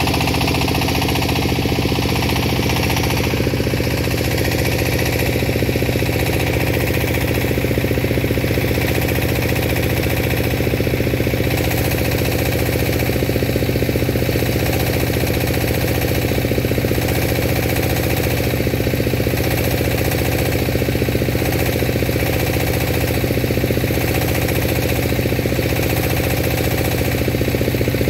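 An engine running steadily with an unchanging low hum, under a constant hiss.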